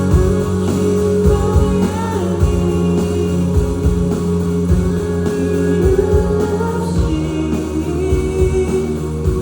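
Live band music with guitar, and a man singing.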